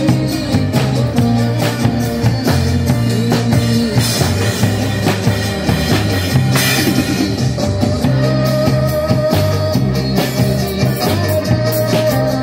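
Live band music: a drum kit keeping a steady beat under electric guitar and bass guitar, played together through amplifiers. The recording sounds rough, which the uploader apologises for.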